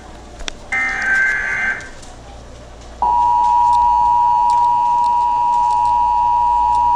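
Emergency Alert System test signal: a one-second burst of SAME header data about a second in, then a short gap, then the steady two-tone EAS attention signal starting about three seconds in and holding.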